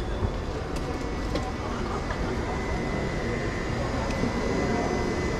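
Exhibition-hall ambience: a steady low rumble with a murmur of distant voices, and a faint steady high tone coming in about two seconds in.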